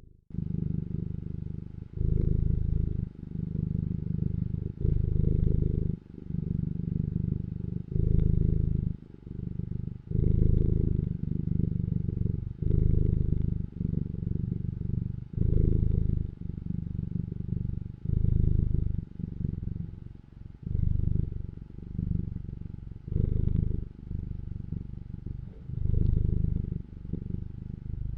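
Domestic cat purring: a low rumble that swells and eases with each breath in and out, about once every second and a half.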